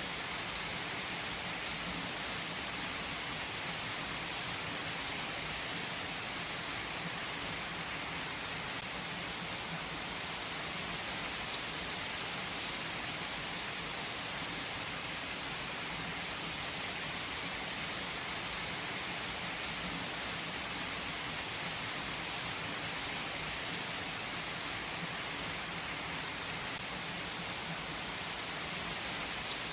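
Heavy rain falling steadily on trees, an even hiss of drops on leaves with the odd sharper drop tick.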